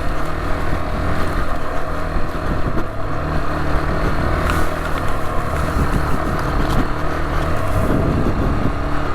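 Rieju Adventura 125's single-cylinder 125 cc four-stroke engine running while the bike is ridden off-road, its pitch rising and falling as the throttle is opened and closed.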